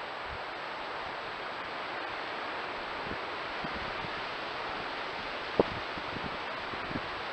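Steady hiss of wind and rustling, with a few soft taps and rustles in the dry leaf litter from a fox moving through the undergrowth. One sharper tap comes about five and a half seconds in.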